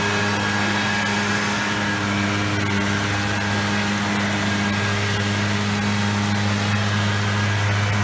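Water from small waterfalls pouring and splashing into a koi pond, an even rushing, with a steady low mechanical hum running under it.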